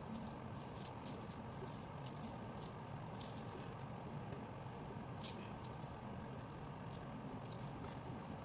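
Dry breadcrumbs shaken from a cardboard box, pattering lightly onto baking paper and dough rolls in scattered, irregular bursts.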